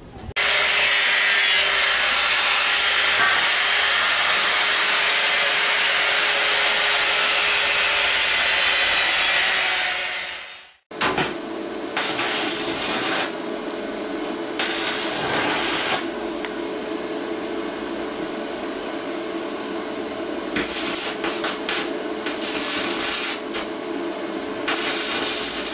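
Electric arc welding on a steel drum: a continuous crackling arc for about ten seconds, then after a sudden break, shorter bursts of crackling arc over a steady background.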